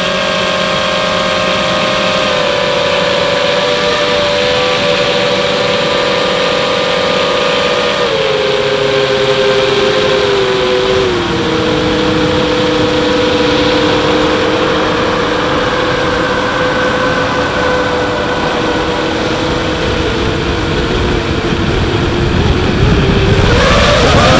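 FPV quadcopter's electric motors and propellers whining, several close tones that step slowly down in pitch while it cruises. Near the end the pitch rises sharply as the motors speed up.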